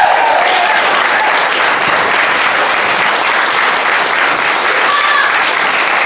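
Audience applauding steadily, with a few voices calling out near the start and about five seconds in.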